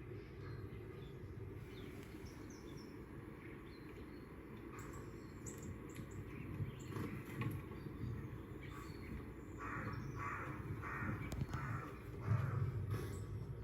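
Birds calling on a television nature programme, with scattered short calls and a run of about five in a row near the end, over a steady low hum.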